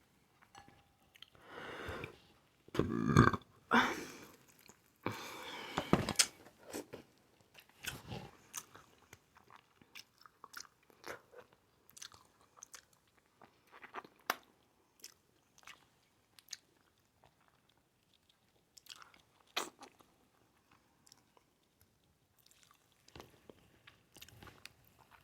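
A person chewing and biting into seafood-boil food: crab, shrimp and potatoes. It comes in uneven bursts of crunching and mouth smacks, loudest in the first several seconds, then sparser clicks with one sharp smack about two-thirds through.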